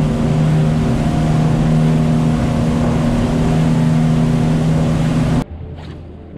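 Motorboat engine running steadily under way, its steady hum mixed with rushing wind and water. It cuts off abruptly about five seconds in, giving way to much quieter sound.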